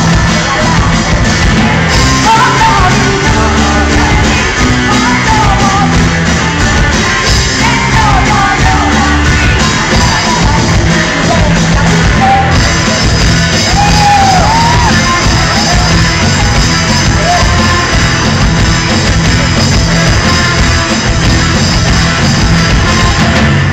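Live rock band playing loudly through the PA: electric guitars, drums and keyboard under a sung lead vocal, steady and dense throughout.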